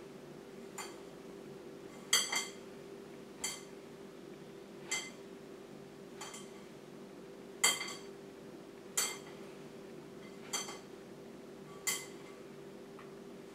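Light, ringing clinks against a mixing bowl, about one every second or so, as butter and cheese are rubbed into flour by hand; a steady low hum runs underneath.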